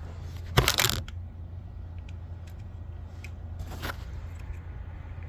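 Handling noises as a turn-signal bulb is worked back into its headlight housing: two short rustling scrapes, one about half a second in and one near the four-second mark, with a few faint ticks, over a steady low hum.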